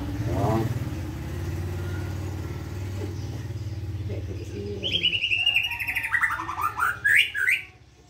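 White-rumped shama (murai batu) singing: a phrase starting about five seconds in, a run of notes falling from high to low, then quick rising sweeps, cutting off just before the end. Under the first half, a vehicle engine hums steadily.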